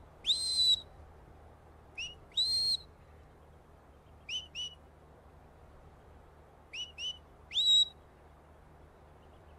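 A sheepdog handler's whistle commands to a working border collie: one long note, then a short and a longer note, then two short chirps, then two short chirps and a longer note that rises and holds.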